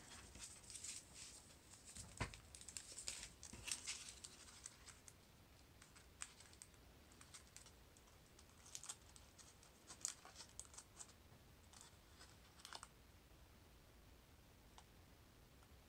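Faint crinkling and small ticks of stiff paper being handled and bent between the fingers, as the toothed pieces of a paper sphericon are worked together. The crinkles come in scattered clusters, busiest in the first few seconds and again around the middle.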